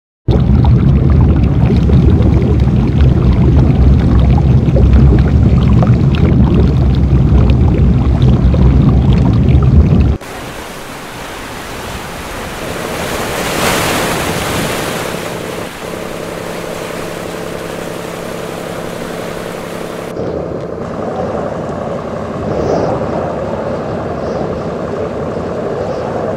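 Wind buffeting the camcorder microphone aboard a sailing boat, a loud low rumble. About ten seconds in it cuts to quieter wind and water noise with a steady low hum under it, and the sound changes again about twenty seconds in.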